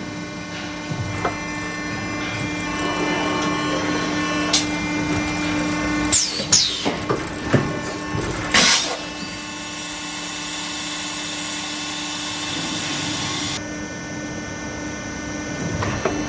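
Hydraulic extrusion blow moulding machine cycling, its hydraulic system humming steadily. About six to nine seconds in come several sharp clanks and short hisses as the mould closes on the parison. Then a steady hiss of blowing air runs for about five seconds and cuts off suddenly.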